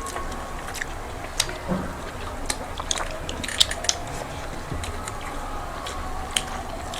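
People eating rice and curry close to the microphone: chewing with scattered sharp mouth clicks and smacks, over a low steady hum.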